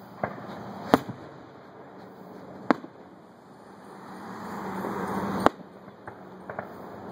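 Aerial firework shells bursting in a series of sharp bangs, the loudest about a second in, with a few small crackles late on. A rush of noise swells for a second or so before a bang about five and a half seconds in.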